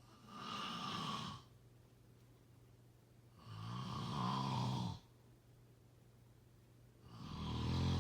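A person snoring: three long snores about three and a half seconds apart, the middle one with a low buzzing rattle.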